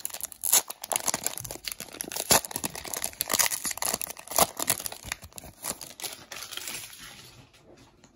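Foil Pokémon booster pack wrapper crinkling and rustling in the hands as it is worked open, fading out near the end.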